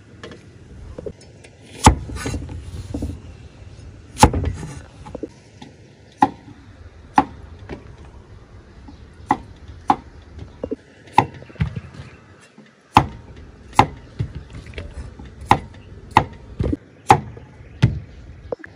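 Knife chopping on a thick round wooden chopping board: sharp, separate strokes, irregularly spaced about a second apart.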